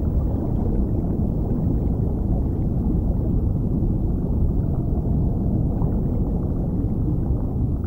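Steady, muffled low rumble of seawater, with no high sound in it at all.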